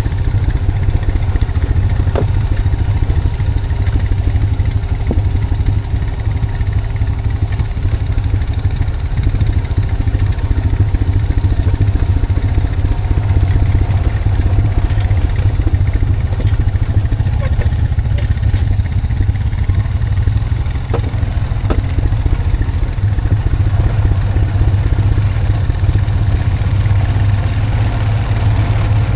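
Honda Foreman 520 ATV's single-cylinder engine running steadily at low speed while it pulls a log on a skidding arch. A few light knocks and clatters sound over it.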